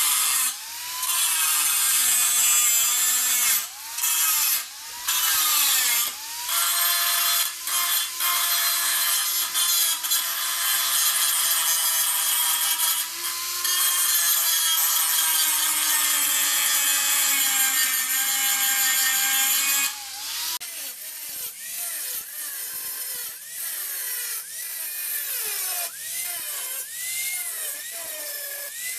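Power grinder grinding unneeded brackets and metal off a 2003 Mitsubishi Lancer Evolution VIII's engine bay. The motor's pitch sags under load and recovers, with a few brief stops. About twenty seconds in it turns quieter and comes in short, broken bursts.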